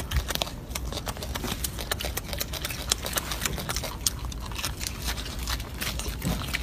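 Golden snub-nosed monkey eating a peeled mandarin orange: a run of irregular wet clicks and smacks from its chewing, over a steady low rumble.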